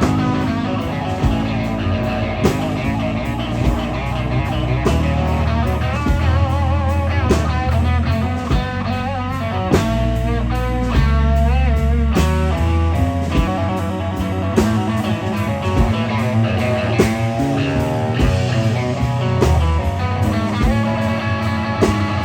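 Live blues band playing a slow blues, with an electric guitar solo of bent notes and vibrato over bass and drums.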